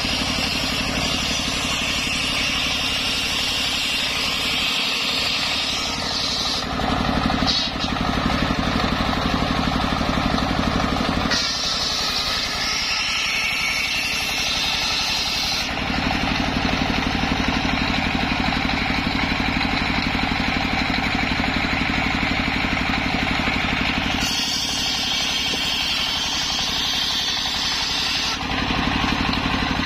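Stationary engine running steadily and driving a belted table circular saw as it rips sengon logs. The high whine of the blade in the wood comes and goes several times as the log is pushed through.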